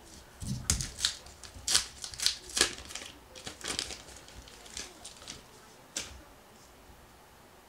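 Paper wrapper of a trading-card pack crinkling and crackling as it is torn open and the cards inside are handled, in a run of short crackles that stops about six seconds in. A soft bump comes under a second in.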